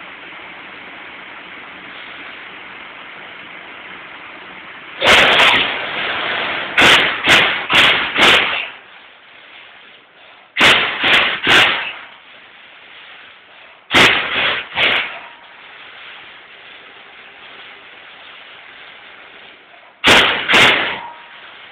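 Baykal BPM-T CNC turret punch press striking sheet metal: sharp punching hits in quick clusters of two to four, with pauses of a few seconds between groups, over a steady machine hum.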